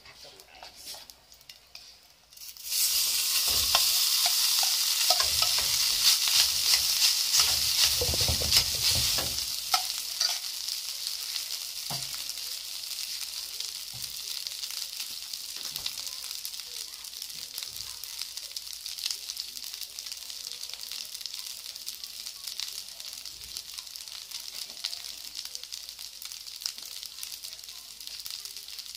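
Cooked rice going into hot oil in a metal wok about three seconds in, setting off a sudden loud sizzle that eases after several seconds into a steady frying hiss as it is stirred. A few light knocks stand out over the hiss.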